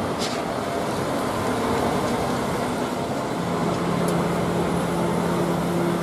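Diesel engine of a MAN concrete mixer truck running as the truck drives slowly, with a steady low hum joining a little past halfway.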